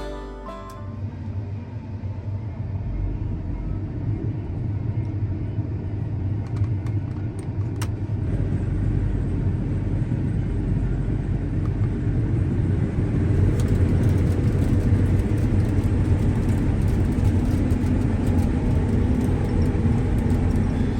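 Steady low rumble of a running motor vehicle, growing louder about two-thirds of the way through and stopping abruptly at the end.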